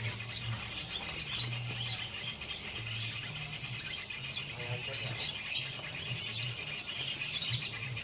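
Many caged songbirds chirping at once: short high chirps and squeaks scattered throughout, over a low hum.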